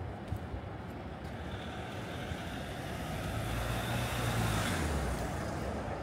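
A motor vehicle passing by on a city street: its engine and tyre noise grow louder to a peak about four to five seconds in, then fall away.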